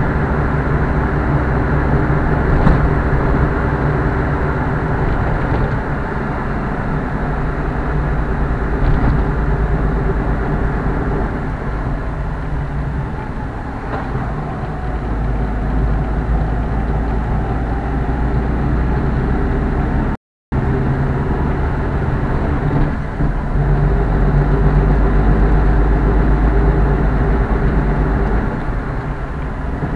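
A car's engine and road noise heard from inside the cabin while driving. The steady engine hum fades in the middle and comes back stronger, and the sound drops out for a split second about two-thirds of the way in.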